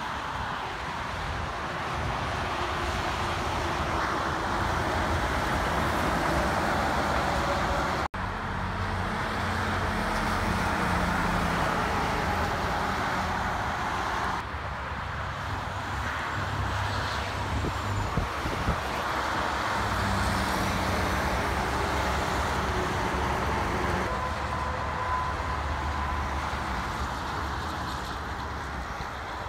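Busy highway traffic: semi-trucks and cars passing at speed, a steady tyre roar with the low drone of diesel truck engines. The sound changes abruptly about 8 seconds in and again about 14 seconds in.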